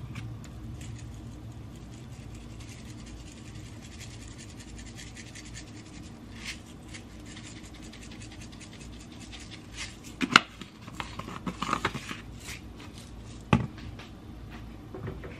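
Spices shaken from handheld spice shakers: faint scratchy rattling, then a few sharp clicks and knocks from about ten seconds in, the loudest a single click near ten seconds and another near thirteen.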